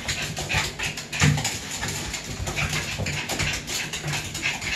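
Chihuahua panting close to the microphone, in quick short puffs a few times a second, with one low thump about a second in.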